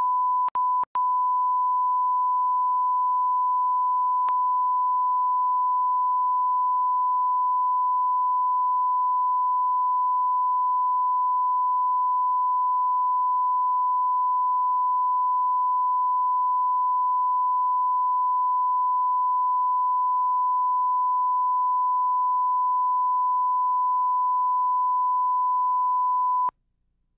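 Steady 1 kHz line-up reference tone played with colour bars at the head of a broadcast tape, used to set audio levels. It drops out twice very briefly near the start and cuts off sharply near the end.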